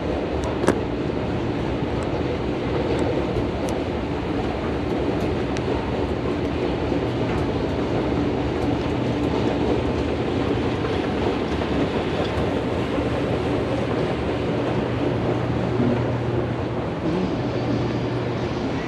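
Steady rumble of a moving vehicle with a low hum underneath, and one sharp click about a second in.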